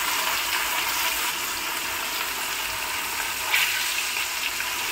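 Steady sizzling hiss of fish deep-frying in hot oil, briefly louder about three and a half seconds in.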